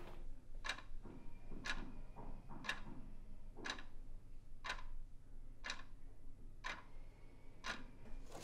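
Quartz wall clock ticking, one sharp tick a second, over a faint low hum.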